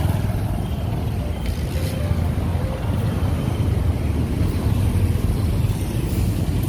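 Motor vehicle running along a road: a steady low rumble of engine and road noise.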